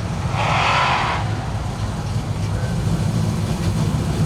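Dirt-track street stock race car engines rumbling steadily at low speed as the field waits for the start of the feature. A brief louder, hissy sound rises over them about half a second in.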